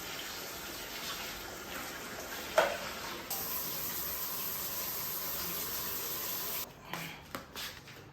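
Water running from a tap into a sink, with a sharp knock about two and a half seconds in. The flow gets stronger about three seconds in and stops near the end, followed by a few small clicks.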